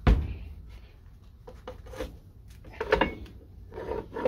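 Hand-operated arbor press cutting leather with a steel keychain die under a thick steel plate: one heavy metal clunk right at the start, then scattered clicks and short metallic clanks as the press handle is pulled down.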